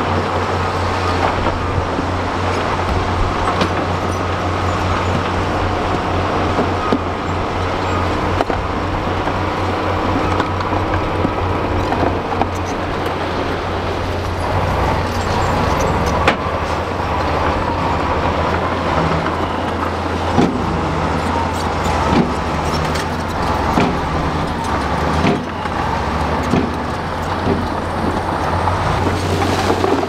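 Heavy diesel engines of dump trucks and a crawler bulldozer running steadily, with scattered knocks and clatter of rock and soil falling. The knocks come more often in the second half.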